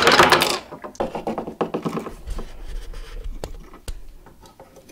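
A burst of noisy, machine-gun-like sound that cuts off about half a second in, then scattered small knocks and clicks of plastic toy soldier figures handled against wooden furniture.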